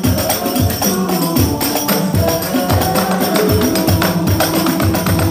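Hadrah ensemble playing sholawat: rebana frame drums beaten in a quick, interlocking rhythm with deep strokes, under voices singing through a sound system.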